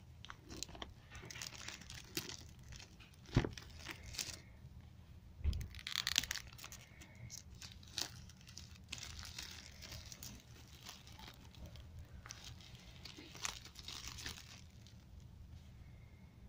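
Clear plastic shrink-wrap being torn and crinkled off a smartphone box, with crackling in several bouts and two dull knocks a few seconds in as the box is handled.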